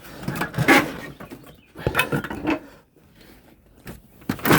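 Stored items being moved and set down by hand: knocks, clatter and scraping in three bursts.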